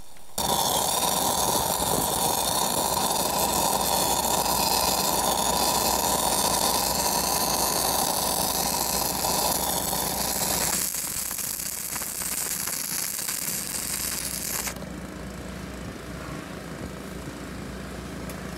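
Stick-welding arc of a 6010 electrode at 80 amps running a root pass on a rolled 3-inch schedule 40 pipe: a loud, steady crackling hiss that starts just after the beginning, thins about eleven seconds in and stops about fifteen seconds in. A steady engine hum runs underneath and is left alone at the end.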